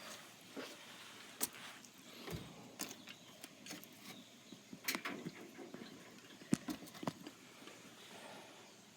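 Scattered light knocks, clicks and rustling from handling water balloons and the washing machine as a balloon is put in; the sharpest knocks come at about one and a half, five and six and a half seconds.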